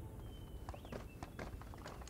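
Footsteps of several people walking on a path: quiet, irregular light steps.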